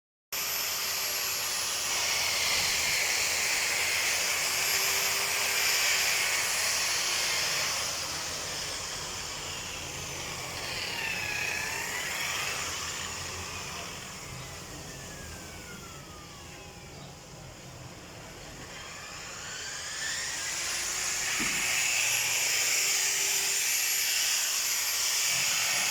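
Taiwan-made milling machine running with a high-pitched whine and hiss. Near the middle its tones glide down and it grows quieter, then the pitch rises back and it returns to full level, as when the machine slows and speeds up again.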